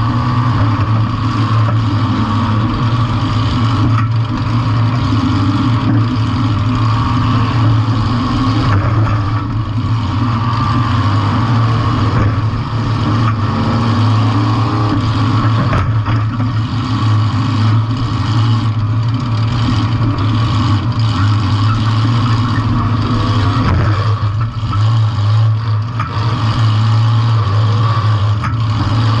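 Compact demolition derby car's engine running loud and steady, a continuous low drone with little change in pitch.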